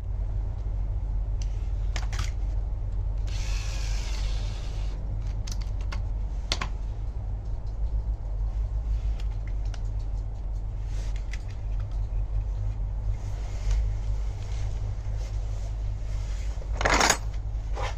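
Light clicks and taps of door lock and handle parts being handled, over a steady low hum, with a short hiss about four seconds in and a louder clatter near the end.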